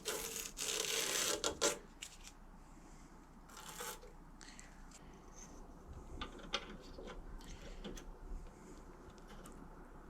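Workshop handling noises: a loud scraping rub over the first second and a half, a shorter scrape near four seconds, then scattered light clicks and knocks.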